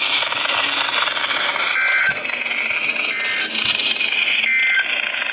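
Radio static: a steady hiss from a radio receiver on a noisy channel, with faint short tones coming and going a few times.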